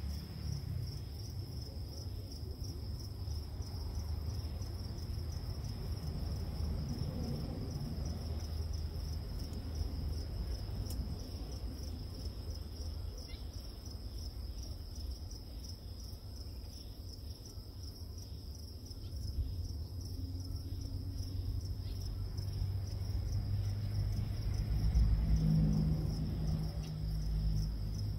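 A steady, high-pitched insect trill runs throughout over a low rumble, and the rumble grows louder near the end.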